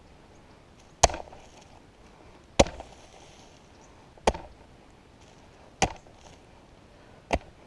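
Chingadera 40 fire-line hoe chopping into the ground to cut a trench: five sharp strikes, about one and a half seconds apart.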